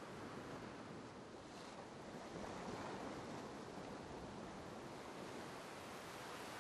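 Surf washing onto a sandy beach, a steady wash of noise that swells slightly about two and a half seconds in.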